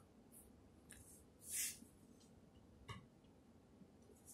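Faint handling noises from a black leather zip clutch being held and turned in the hands: a few short soft rustles, the loudest about a second and a half in, and a small click near three seconds.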